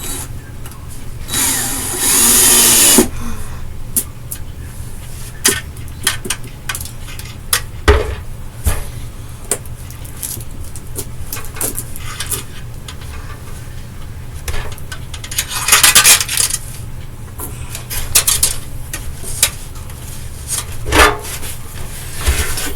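A power drill runs in two short bursts, the first about a second and a half in and the second near the end, with clicks and knocks from small parts being handled in between, over a steady low hum.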